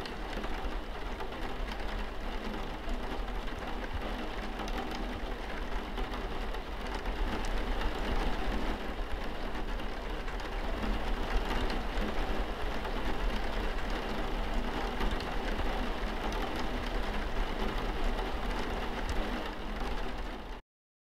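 Heavy rain falling steadily, a dense hiss of drops that grows a little louder about a third of the way in and cuts off abruptly just before the end.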